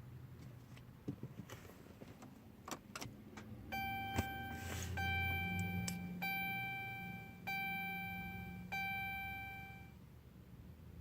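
A few light clicks and rattles, then the 2013 Dodge Charger's dashboard warning chime sounding five times, about one and a quarter seconds apart, each chime ringing and fading, over a low hum.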